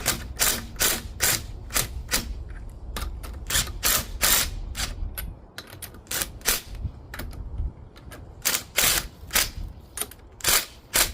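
Hand ratchet clicking in short strokes as the wheel's lug bolts are run in, sharp metallic clicks two or three a second at an uneven pace, over a low steady rumble.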